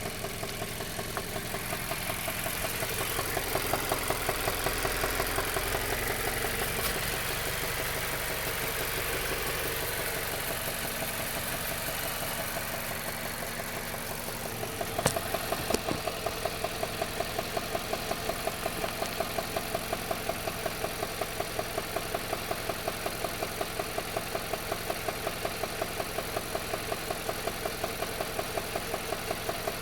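Mazda CX-5 engine running with a loud, quick, evenly spaced ticking; it runs louder for roughly the first half, then settles to idle where the ticking stands out plainly. Two sharp knocks a little past the middle. The cause of the tick is unknown, and the oil level has been checked and is fine.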